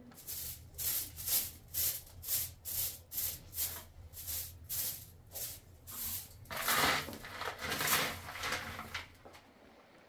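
Short straw hand broom sweeping a dusty floor into a dustpan, in brisk, even scratchy strokes about two to three a second. Around two-thirds of the way through the strokes turn into longer, louder scraping, and they stop near the end.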